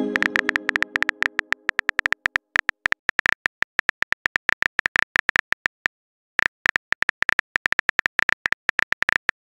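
Simulated smartphone keyboard click sounds in rapid succession as a message is typed letter by letter, with a brief break about six seconds in. A message alert tone is fading out at the start.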